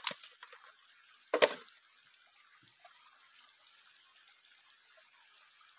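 Hands splashing in shallow stream water, with one loud sudden splash about a second and a half in; afterwards only the faint trickle of the stream.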